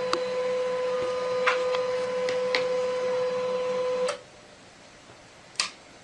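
Desktop printer running with a steady hum and several sharp clicks, then stopping abruptly about four seconds in; one sharp click follows near the end.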